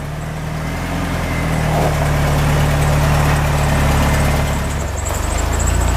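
A vehicle engine idling steadily, with a faint, high, regular ticking joining in near the end.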